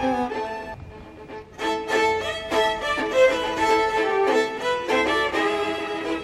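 Instrumental background music with a melody of stepped notes. It drops quieter about a second in, then picks up again about half a second later.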